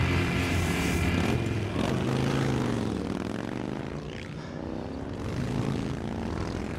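Several motorcycle engines running as the bikes ride along the road. Their pitch drops and then climbs again around the middle.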